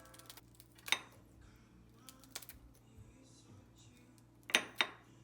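Kitchenware being handled: a few separate sharp clinks and knocks, one about a second in, one around the middle, and a louder pair near the end.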